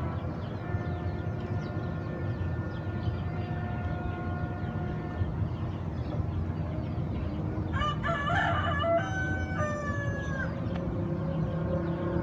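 A rooster crows, loudly, about eight seconds in, over a steady low rumble. Earlier, several long held tones sound together for a few seconds.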